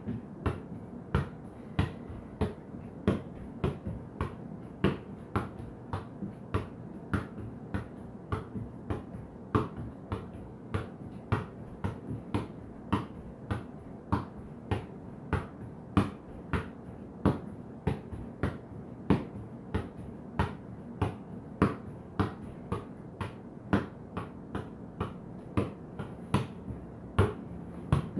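Soccer ball juggled with bare feet: a steady run of dull taps, about two a second.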